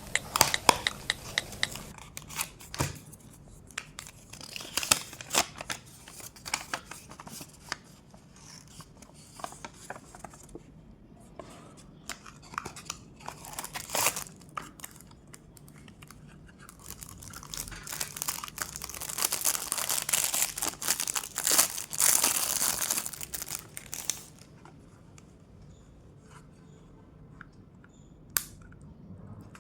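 Packaging of a digital timer being handled and opened up close: crackling, crinkling and tearing with many light taps and clicks. A longer, louder spell of tearing and rustling comes about two-thirds of the way through, followed by a few scattered clicks.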